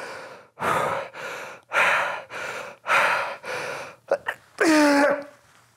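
A man breathing hard in quick, forceful puffs, about two a second, straining as the electrical muscle stimulation of an EMS suit contracts his muscles. A short voiced groan near the end.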